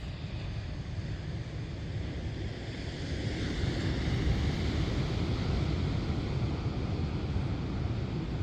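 Ocean surf washing onto a sandy beach, a steady rush that swells louder about halfway through.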